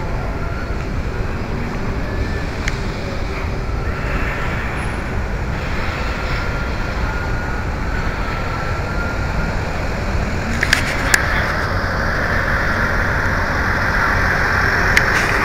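Steady city street traffic noise, with a few sharp clicks about eleven seconds in and again near the end.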